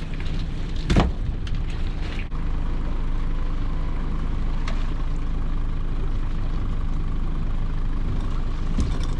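Small fishing boat's engine running steadily, with one loud thump about a second in and a few lighter knocks.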